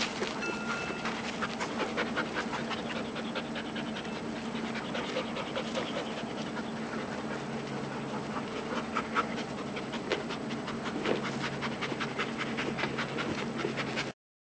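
Two giant schnauzer puppies panting hard as they tussle over a rubber Jolly ball, with many small clicks and scrapes from mouthing the ball on gravel. The sound cuts off abruptly near the end.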